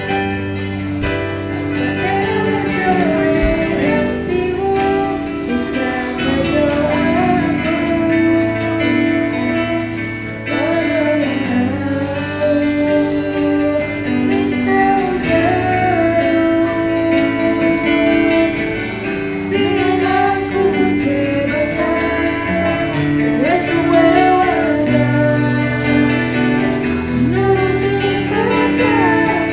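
A woman singing a song into a handheld microphone, her melody gliding over live instrumental accompaniment with steady held chords.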